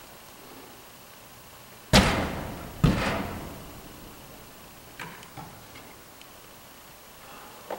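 Two loud bangs about a second apart, each with a ringing decay, as a dry-tooling climber's metal gear strikes the artificial climbing wall, followed by a couple of lighter knocks about five seconds in.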